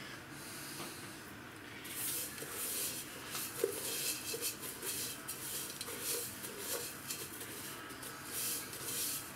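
Coarse salt-and-pepper coating grating and rustling as pieces of pork fat are laid into an enamel pot for dry salting: a string of short, scratchy rustles starting about two seconds in.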